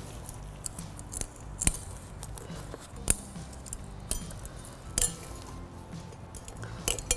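A small flathead screwdriver prying metal pad slide clips off a rusty brake caliper bracket: scattered sharp metallic clicks and scrapes, several separate ticks a second or so apart.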